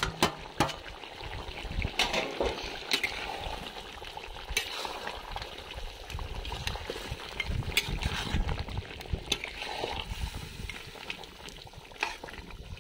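Chicken and chopped tomato simmering and sizzling in an iron kadhai while a flat spatula stirs them, with irregular scrapes and knocks of the spatula against the pan.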